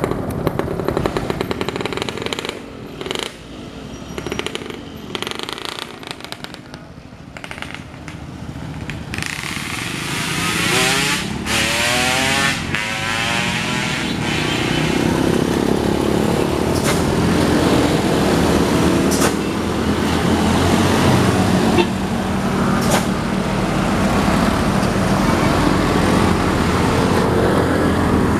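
Diesel truck engine running close by, growing louder and steadier from about a third of the way in. Around ten to thirteen seconds in, another vehicle's engine goes by, rising and then falling in pitch.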